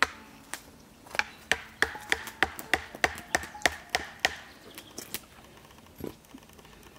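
Machete blade striking down into a hand-held wooden stake, splitting and chopping the wood: a quick run of about a dozen sharp chops, about three a second, then a few slower, spaced strikes.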